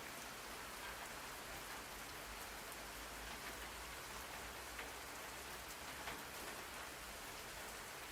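Steady rain used as a white-noise track: an even hiss of rain on a surface with faint scattered drop ticks.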